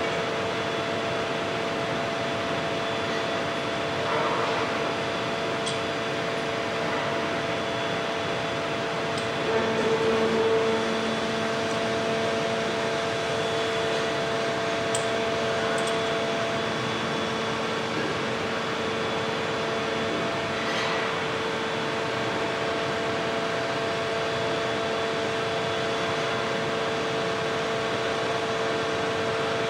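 Steady hum of a large hydraulic press running as its upper die slowly presses a red-hot steel plate into the shape of a turbine blade, with a couple of held tones and a brief swell about ten seconds in.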